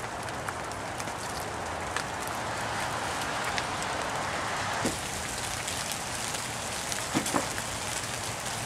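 Steady rain falling, with scattered short sharp ticks of drops.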